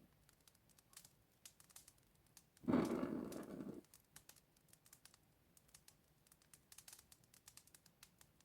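A match struck and flaring into flame: a sudden burst of noise about three seconds in, lasting about a second, amid faint scattered crackles and small clicks.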